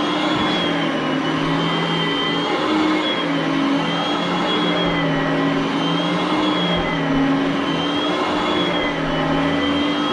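Oreck upright vacuum cleaner running steadily, its motor whine rising and falling slightly in pitch every couple of seconds over the rush of air.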